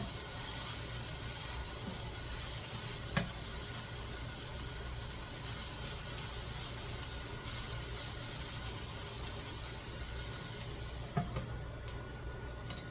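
Chicken sizzling steadily as it fries over high heat, a constant hiss. Two short, sharp knocks sound over it, about three seconds in and again near the end.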